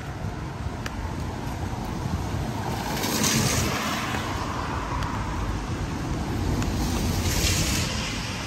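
Road traffic: cars driving past over a steady low rumble, their tyre hiss swelling twice, about three seconds in and again near seven seconds.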